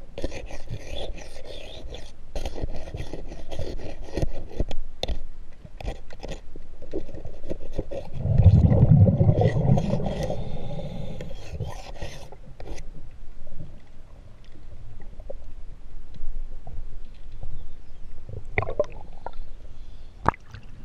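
Hand scraper working underwater on a fouled propeller shaft, many sharp clicks and scraping strokes heard muffled through water. A louder low rumble lasts about two seconds partway through, and the scraping thins out to scattered clicks in the second half.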